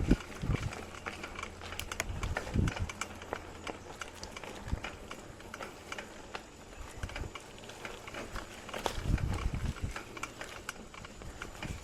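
Mountain bike rolling over a rough dirt trail: a constant irregular rattle of clicks and knocks from the bike, with heavier low thumps now and then as the wheels hit bumps.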